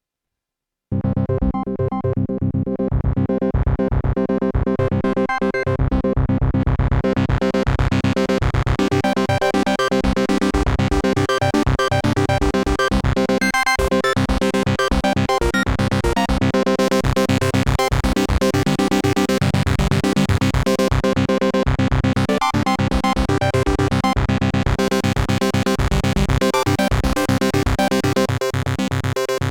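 Korg Minilogue analog polyphonic synthesizer playing a preset with fast, repeating notes. It starts about a second in and grows brighter over the first several seconds as the tone opens up.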